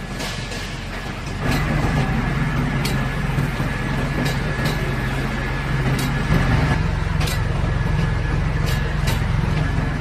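Electric drum wood chipper running with a steady low drone that grows louder about a second and a half in. Sharp clicks and knocks are scattered through it, the sound of wood chips being thrown against the machine's metal.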